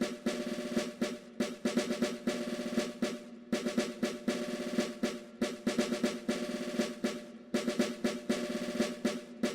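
Drum-led background music with quick percussion strokes, in phrases that repeat about every two seconds.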